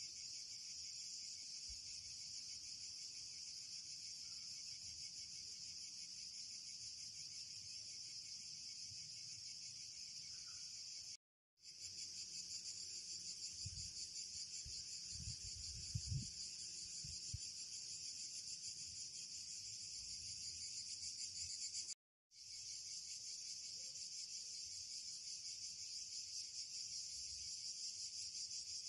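A steady, high-pitched insect chorus chirping without pause, broken by two brief drops to silence about a third and two thirds of the way through. A few low thumps come near the middle.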